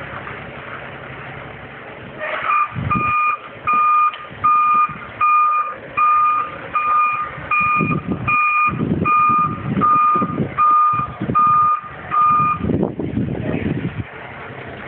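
Truck reversing alarm beeping about twice a second for about ten seconds, over the running diesel engine of a Kenworth T660 tractor hauling a tanker trailer.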